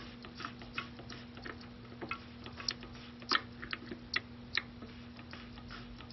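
Irregular light metallic clicks and ticks from a small flat-head screwdriver working the ratchet catch inside a Harley-Davidson locking gas cap, with a few louder clicks a little past the middle; the catch is not engaging.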